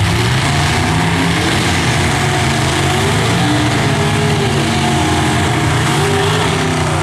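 Drag car's engine held at high revs during a burnout, its rear tyres spinning on the track with a dense hiss; the hiss cuts off near the end as the burnout stops.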